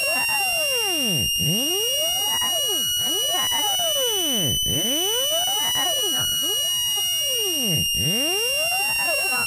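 Electronic speaker-cleaning tone: a loud, steady high-pitched beep with overtones, overlaid by gliding tones that sweep down and back up about every three seconds.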